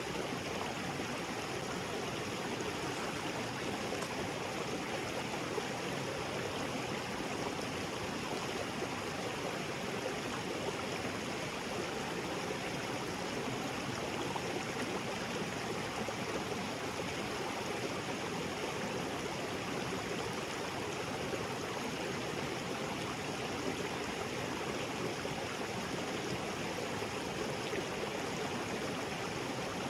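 Small waterfall splashing steadily into a creek, with the even rush of running stream water.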